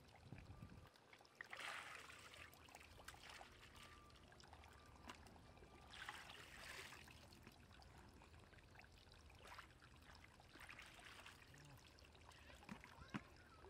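Faint splashing and trickling of shallow muddy pond water as hands and a small plastic sieve basket scoop through it, in a few short bursts.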